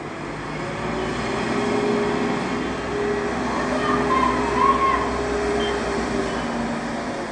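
A motor vehicle driving past on the street, its engine hum swelling and then fading away.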